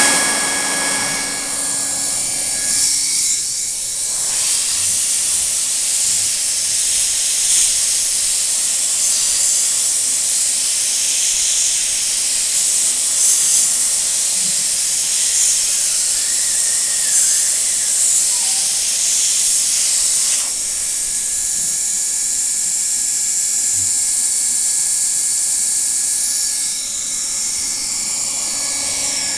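Steady loud hiss like blowing air, fuller in sound from about four seconds in until about twenty seconds in, then thinner again.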